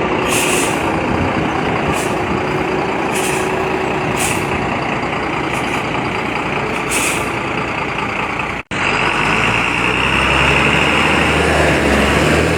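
Heavily overloaded truck's diesel engine straining under load, with several short hisses of air. After a cut partway through, another truck's engine runs low and steady.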